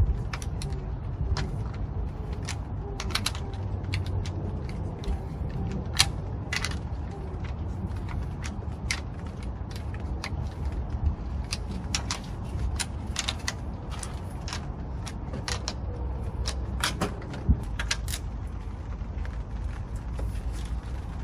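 Scattered sharp metallic clicks from a hand tool working the head cover nuts on a Honda B18C engine, as the cover is tightened down after a gasket change. A low steady rumble runs underneath.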